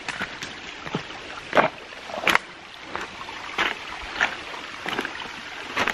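Footsteps on leaf litter and loose creek stones, about two uneven steps a second, over the steady running of a small mountain creek.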